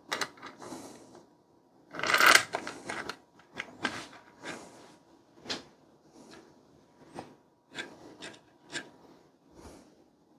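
Handheld screwdriver turning the screws of a CPU cooler's mounting bracket on a PC motherboard: scattered small clicks and scrapes of metal hardware, with a louder rustle of handling about two seconds in.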